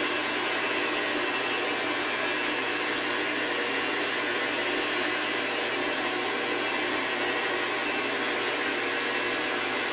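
Metal lathe running steadily while a small drill bit cuts a hole in steel bar stock. Four brief, high-pitched squeaks come through the run.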